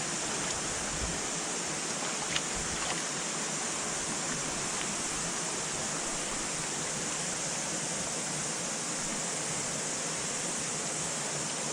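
Steady rush of water from the waterfall and stream, with a faint click about two and a half seconds in.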